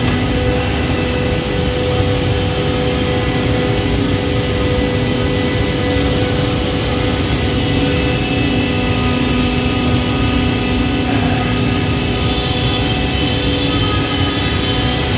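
CNC scroll saw running: a steady mechanical drone with several steady whining tones over it, and some higher whining tones joining about twelve seconds in.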